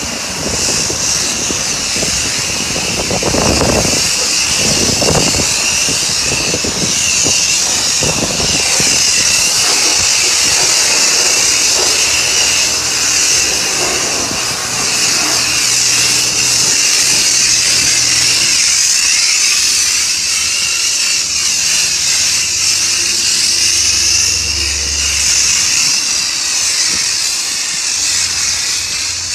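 High-pressure car-wash wand spraying onto a car: a steady, loud hiss with a high whine running under it, and a low hum coming and going in the second half.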